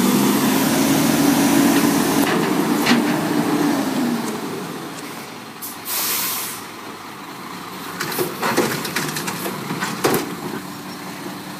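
Automated side-loader garbage truck working: engine and hydraulics running loud and steady for the first four seconds, a short hiss of air brakes about six seconds in, then a series of clanks and knocks from the mechanical lifting arm.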